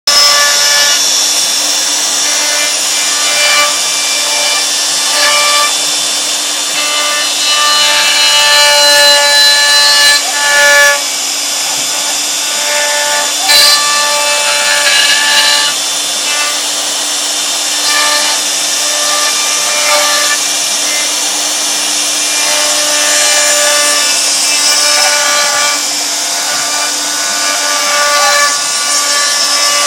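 CNC router milling wood: the spindle runs with a steady hum while the bit cuts with a constant hiss. Several whining tones shift in pitch every second or two as the machine moves.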